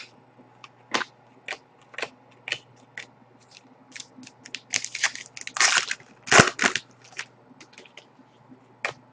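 Trading cards being flicked through one at a time, with a sharp card snap about every half second. A denser stretch of crackling card handling comes in the middle, loudest a little past six seconds in.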